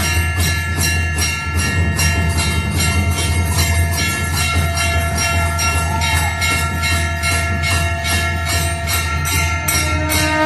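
Temple bells rung rapidly and without pause during aarti, about four strikes a second, each ringing on into the next, over a steady low hum.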